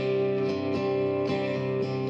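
Guitar strumming chords, a fresh strum about every half second with the chords ringing between, during a song with no singing at this moment.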